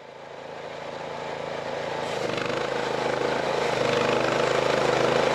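An engine running steadily and fading in from silence, its note stepping up slightly about two seconds in.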